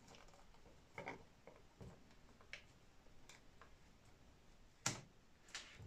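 Faint, scattered clicks and taps as hands route a rubber drive belt around a telescope mount's removable printed belt wheel; the sharpest click comes near the end.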